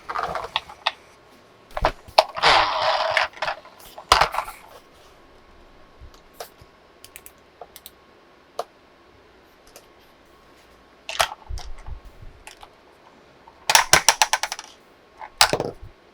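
Hands unboxing and handling a plastic toy vehicle and its packaging: scattered sharp clicks and taps of hard plastic. A rustling crinkle lasts about a second just after two seconds in, and a quick run of clicks comes near the end.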